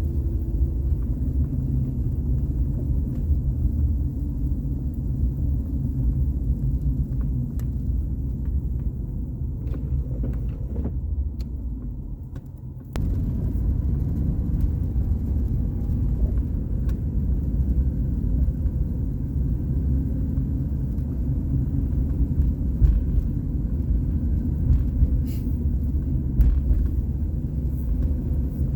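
Steady low rumble of a car driving: engine and road noise. The rumble fades down around ten seconds in, then comes back abruptly about thirteen seconds in.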